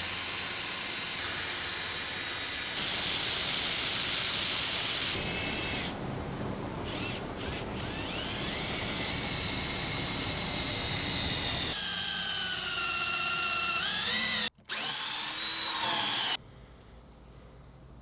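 Electric power tool running with a high motor whine, changing abruptly several times. Near the end its pitch dips and rises again before it stops.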